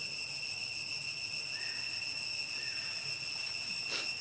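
Insect chorus: a steady high-pitched whine with several pitches stacked together. A single sharp click comes just before the end.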